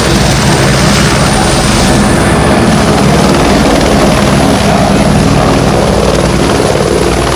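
Bell 212 helicopter running, its twin-turboshaft engines giving a steady loud roar over a low hum. A thin high turbine whine steps up slightly in pitch about two seconds in.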